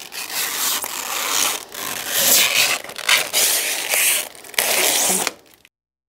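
Protective plastic film being peeled off the glass side panel of an NZXT H5 Flow PC case: a continuous crackling, ripping sound with sharper crackles through it. It cuts off abruptly near the end.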